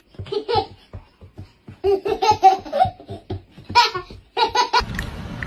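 A baby laughing in a run of short bursts, which stops just before the end.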